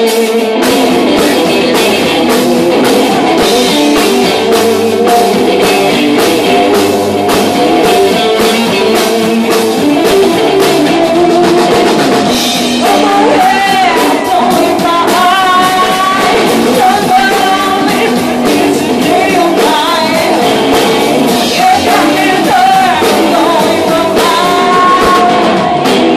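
Live rock band playing loud, with a drum kit and electric guitar; a woman's lead vocal comes in about halfway through.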